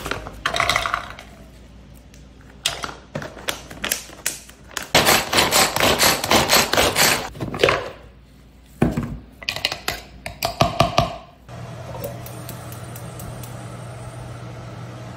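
A hand-powered mini garlic chopper rattling in several bursts as its blades whirl and mince the cloves inside the plastic bowl. Near the end this gives way to a steady low hum with the gas stove burner lit.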